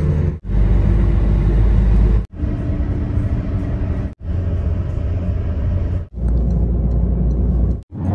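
Road and engine noise inside a moving car: a steady low rumble with tyre hiss. It comes in short pieces of about two seconds each, each cut off abruptly by a brief silence.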